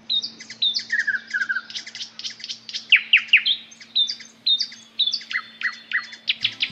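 A songbird singing in quick phrases of chirps and steep downward-sweeping whistles. Music comes in just before the end.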